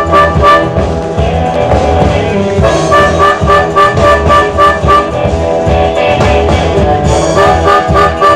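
Live blues band playing an instrumental passage: a drum beat of about four hits a second under a lead line of held notes, with guitar. The lead drops out twice and comes back.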